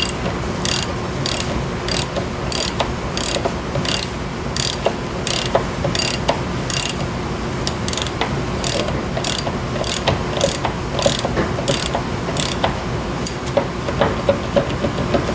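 Hand ratchet wrench being worked back and forth, its pawl clicking in a steady run of short bursts, about one and a half strokes a second, that stops near the end.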